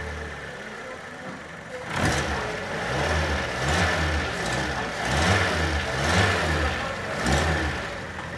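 Fiat Punto 1.4-litre four-cylinder petrol engine idling just after start-up. About two seconds in it is revved several times in quick succession, the pitch rising and falling with each blip, then it drops back to idle near the end.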